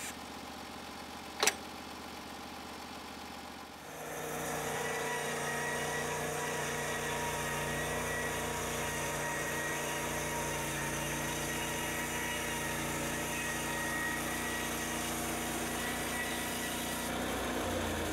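Small gasoline engine of a portable band sawmill idling, with one sharp click about a second and a half in. About four seconds in the engine speeds up to a steady, louder run with the mill running.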